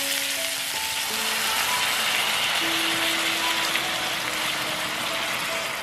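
Liquid poured into a hot pan of sizzling onions, carrots and shiitake mushrooms. The sizzle swells to a stronger hiss from about a second in as the liquid hits the pan, then eases near the end. Background music plays throughout.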